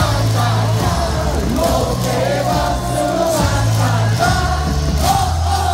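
Baseball stadium crowd singing a cheer song together over loud music from the ballpark PA, with a bass line in long held notes.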